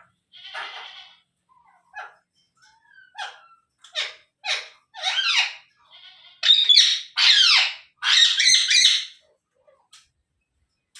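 Indian ringneck parrot calling: a few short, separate calls, then a run of loud, harsh screeches in the middle of the stretch.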